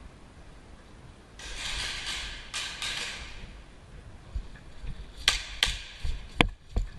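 Airsoft replicas firing: a rush of noise lasting about two seconds, then four sharp snaps spaced over about a second and a half.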